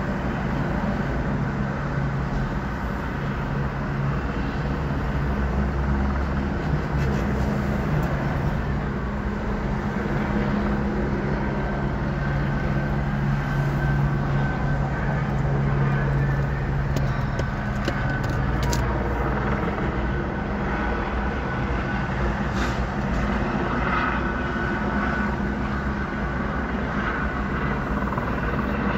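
Street traffic noise with the steady low hum of idling vehicle engines, and a few faint clicks about two-thirds of the way through.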